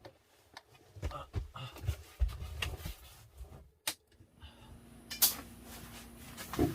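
Scattered knocks, clicks and rustling of things being handled in a small room, the loudest knock about five seconds in, with a low steady hum starting about four seconds in.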